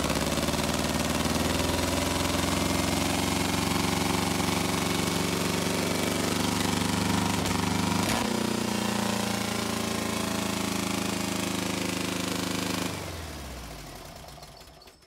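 Freshly rebuilt 1776cc Volkswagen air-cooled flat-four running steadily on an engine stand. There is a click about eight seconds in, and the running note shifts slightly. Near the end the engine is shut off and winds down to a stop over about two seconds.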